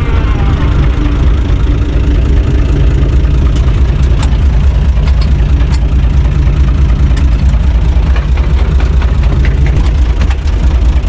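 UTB 445 tractor's four-cylinder diesel engine running steadily at idle, heard from inside the cab, with a few short light knocks.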